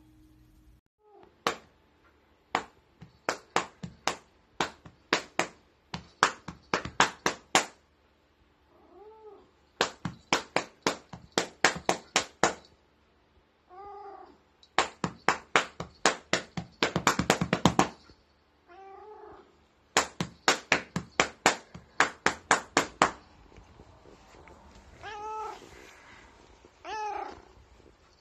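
A cat meowing in short calls, several times, between runs of rapid sharp clicks.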